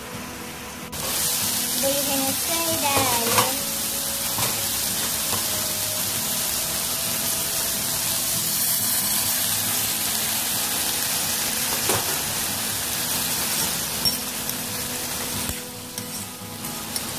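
Water poured into a hot wok of frying silkworm pupae and raw mango, hitting the hot pan with a sudden loud hiss about a second in. It then sizzles and bubbles steadily, easing near the end.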